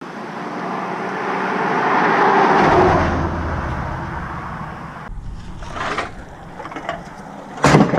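A road vehicle passing, its noise swelling and then fading over the first few seconds, followed by a sharp knock near the end.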